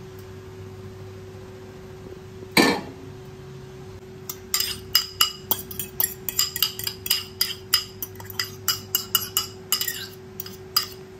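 A metal spoon clinking and scraping against a bowl as beaten egg is emptied into a frying pan: one loud knock about two and a half seconds in, then a quick run of sharp clinks, about two or three a second. A steady low hum runs underneath.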